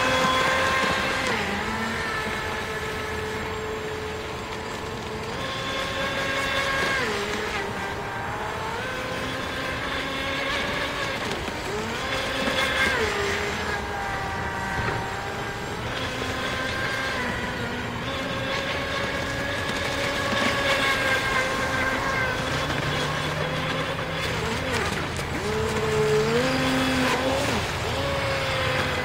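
Radio-controlled model jet ski's brushless outrunner motor, on a 4S LiPo with a flex-shaft drive, whining steadily as it runs on the water. Its pitch dips and climbs back several times as the throttle changes.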